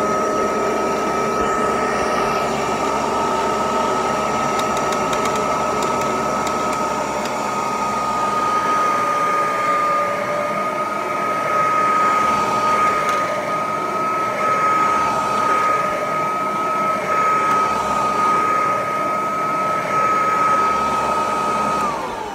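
Kirby Tradition upright vacuum cleaner running over carpet with a steady, high motor whine. It is switched off near the end, the whine falling in pitch as the motor winds down.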